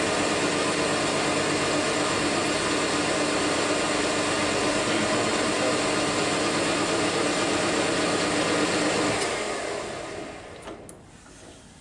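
Metal lathe running steadily with a hum, its spindle turning an aluminium workpiece while a center drill is fed in from the tailstock. About nine seconds in the lathe winds down and fades over a couple of seconds, with two light clicks near the end.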